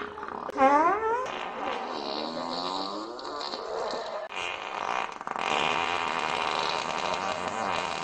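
Long, drawn-out farting that wavers in pitch, with a loud fart rising in pitch about half a second in.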